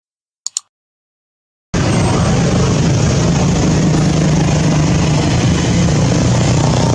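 Two short clicks, then about two seconds in a steady engine noise starts abruptly and runs on loudly with a constant low hum.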